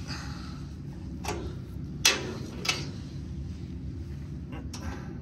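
Hand-lever grease gun being pumped into a blower shaft pillow-block bearing: a handful of sharp clicks a second or so apart, the loudest about two seconds in, over a steady low hum.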